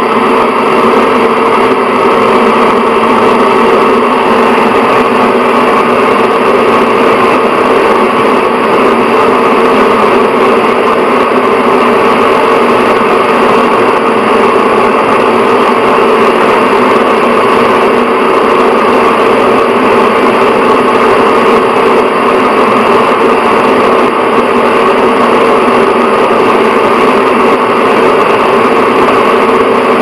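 Bathroom exhaust fan running at a steady speed: an even whir with a constant hum that never changes.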